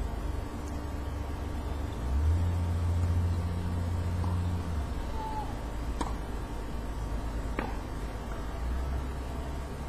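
Low engine rumble of road traffic, swelling for a couple of seconds early on, with two sharp knocks of a tennis ball about a second and a half apart later.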